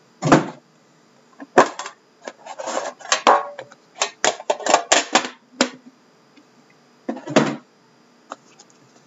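Shrink-wrapped trading-card box and its metal tin being handled and unwrapped: scattered bursts of plastic-wrap crinkling, clicks and clacks, with a couple of duller knocks as the box is set down on the table.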